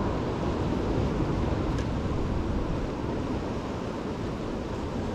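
Steady wind buffeting the microphone over ocean swell washing and breaking against the rocks below.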